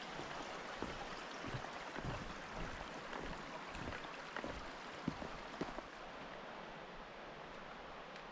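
A steady rushing noise, like running water, with irregular light knocks or steps that stop about six seconds in.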